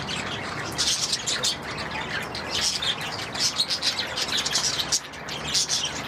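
Budgerigars chirping and chattering, many short high chirps overlapping in quick clusters.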